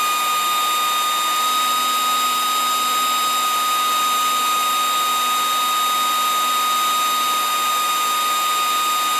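DPS-1200FB server power supply's cooling fan running at high speed, a steady rush of air with a steady high tone in it. The fan has been spun up by the Arduino fan control because the supply is delivering about 47 amps.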